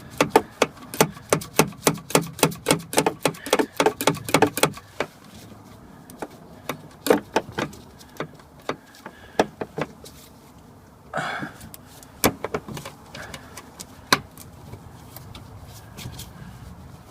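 Hand work with tools on a car's metal fittings: a quick run of sharp clicks, about five a second, for the first five seconds, then scattered clicks and knocks with a brief scrape partway through.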